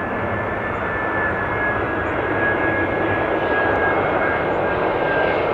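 Jet airliner engines running: a steady rush of engine noise with a high whine that sinks slightly, growing gradually louder.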